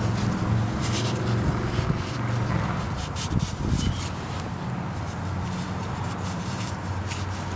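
A rag rubbing and rustling against the oil filter mounting surface of a Kohler Courage engine as it is wiped clean, in short scrapes. Under it runs a steady low hum, weaker in the middle.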